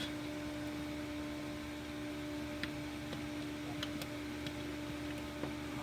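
Steady hiss with a constant low hum, and a few faint light ticks from handling a crank sensor wiring connector while it is fitted into place.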